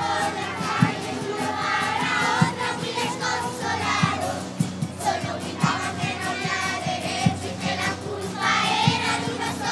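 Children's murga chorus singing in unison to an acoustic guitar, over steady low thumps on the beat.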